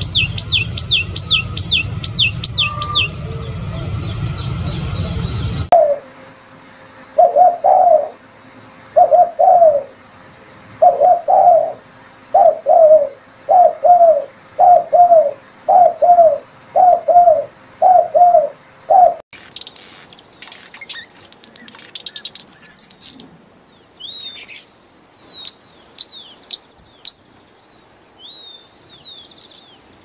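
Three birds in turn. First a common tailorbird sings a fast run of sharp, high down-slurred notes. From about six seconds a spotted dove gives about a dozen low, paired coos, evenly spaced. From about nineteen seconds come high thin chirps and squeaks of a sparkling violetear hummingbird.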